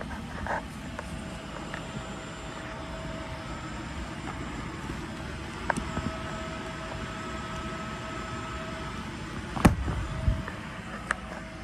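Steady whirring hum of a blower motor with a faint steady tone, broken by a few sharp knocks, the loudest about ten seconds in.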